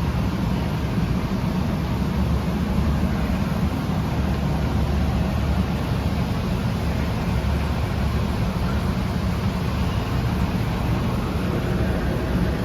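Steady low mechanical rumble that holds even throughout, with no knocks, rhythm or change in pitch.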